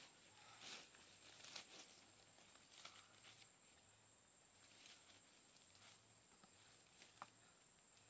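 Faint footsteps swishing through leafy undergrowth, a few soft steps about a second apart that thin out in the second half, with one small sharp click near the end, over a thin steady high tone.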